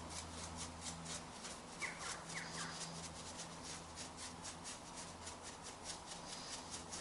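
Small brush sweeping wood dust off a turned piece in quick short strokes, a faint rapid scratching at about five strokes a second, over a low steady hum.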